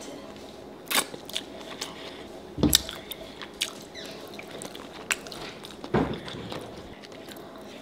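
Close-miked eating sounds: wet chewing, lip smacking and finger licking on a sauce-drenched seafood boil, with scattered small wet clicks and louder smacks about a second in, near three seconds and around six seconds.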